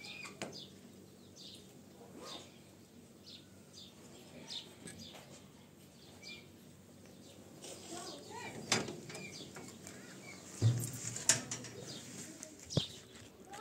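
Small birds chirping, short high calls scattered throughout. A few sharp knocks and a low thump sound in the second half.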